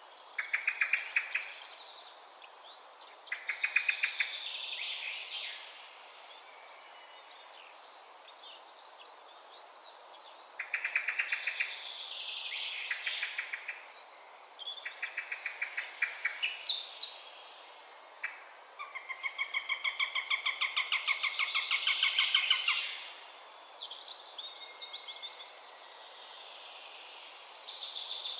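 Eurasian sparrowhawk calling: rapid chattering series of sharp notes in bouts of a second or two, with one longer bout of about four seconds past the middle. Another bird's short high note repeats about once a second.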